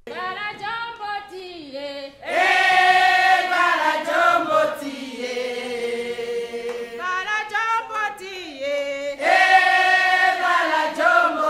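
A group of women singing together, a chant-like song in long held phrases; the singing swells loudest about two seconds in and again near the end.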